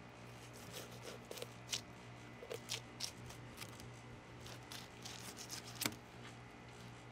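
Dexter fillet knife slicing a mutton snapper off its rib cage, with scattered small crackles and clicks as the blade cuts through the thick scales and skin and ticks over the rib bones. A steady low vent hum runs underneath.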